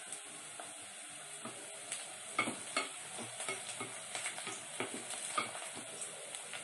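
Wooden spatula stirring onions frying in oil in a large metal pot. A steady sizzle runs throughout, and from about two seconds in come repeated scrapes and knocks of the spatula against the pot, roughly two a second.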